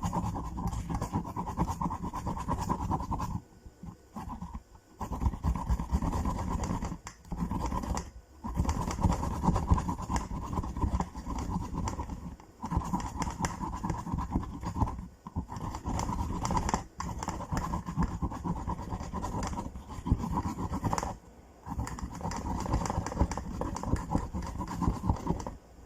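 Fresh ginger root, skin on, being grated on a hand grater: a steady run of rapid rasping strokes that stops briefly every few seconds.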